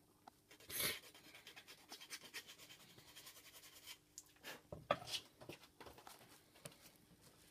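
A file rasping at the edges of a small model window part in quick short strokes, trimming it so it will slot into its opening, with a few louder scrapes about halfway through.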